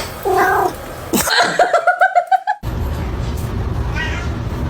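A cat vocalizing: a short meow, then a quick run of repeated pulsed calls rising slightly in pitch that cuts off suddenly about two and a half seconds in. A steady low rumble follows, with faint high chirps near the end.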